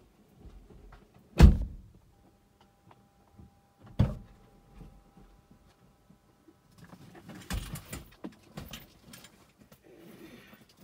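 Two heavy thuds of car doors being shut, about two and a half seconds apart and heard from inside the car, followed a few seconds later by a spell of clicking and rustling.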